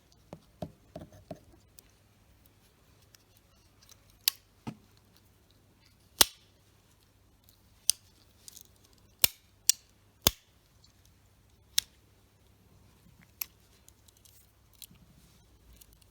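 Victorinox Swiss Army pocket knife being handled, its blades and tools clicking: about a dozen sharp clicks at irregular intervals, a few of them loud.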